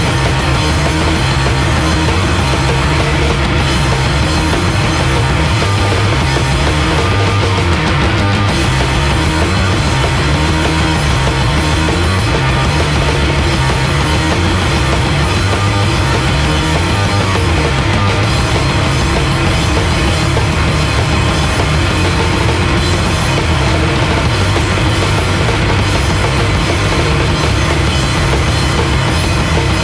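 Loud live noise-rock from a bass-and-drums duo: a heavily distorted bass guitar riff with shifting low notes over dense, fast drumming, playing without a break.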